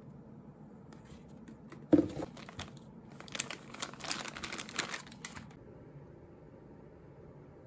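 A single knock about two seconds in, then plastic snack bags crinkling as a hand handles them for about two seconds.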